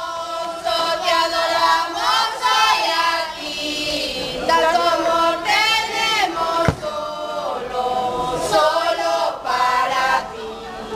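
A group of women's voices singing a Christmas song together, in sustained, wavering phrases.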